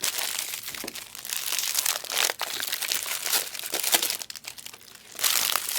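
Foil trading-card pack wrappers crinkling and tearing as packs are opened and handled, a dense crackle with a short lull near the end.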